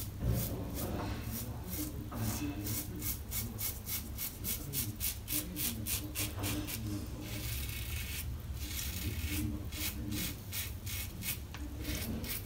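Karve CB safety razor scraping through lathered stubble on the cheek and neck in many short, quick strokes. The blade is well used and no longer cutting the hair as smoothly, though the shave is still close.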